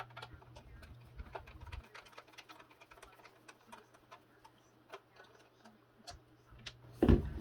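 Screwdriver with a security Torx bit backing a small screw out of a Ryobi ONE+ battery's plastic case: a run of light ticks and clicks, quickest in the first two seconds and scattered after. A louder thump comes near the end.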